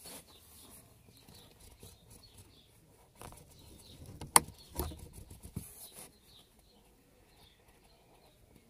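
Felt-tip marker scratching and squeaking in short strokes on paper, quiet. A sharp click comes about four and a half seconds in, followed by a couple of softer knocks.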